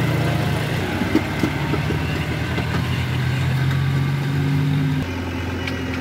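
Tractor diesel engine running steadily under way, with a few light knocks and rattles. About five seconds in it gives way abruptly to a backhoe loader's diesel engine running at a steady, higher-pitched hum.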